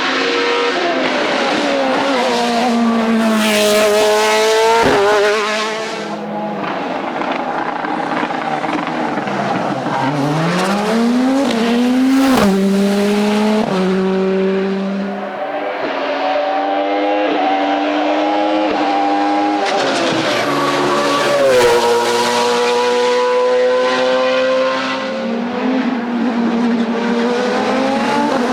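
Racing car engine revving hard through the gears, the pitch climbing and then dropping sharply at each upshift, with a sharp crack at two of the shifts.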